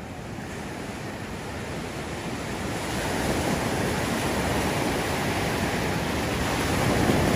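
Ocean surf: waves breaking and foaming water washing through the shallows, swelling louder about three seconds in as a wave surges in.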